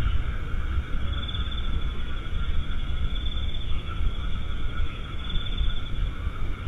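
Night insects such as crickets trilling in short bursts about every two seconds, over a steady low rumble and hiss from a CCTV camera's microphone.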